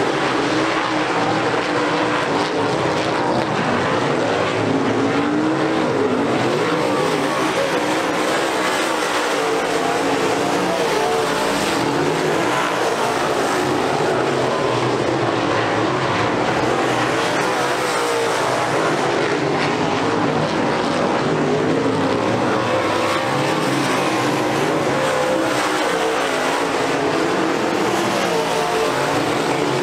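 A field of UMP dirt modified race cars' V8 engines running together at racing speed. They make a steady, blended drone of many engines whose pitch wavers up and down as the cars go around the oval.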